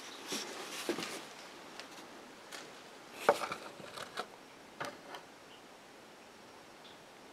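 Scattered light knocks, clicks and rustling of handling, with the sharpest knock about three seconds in.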